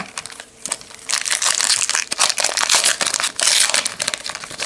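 A 2017 Topps Fire baseball card pack's foil wrapper crinkling and tearing as it is pulled open by hand. A few light clicks come first, as the pack is drawn from the box.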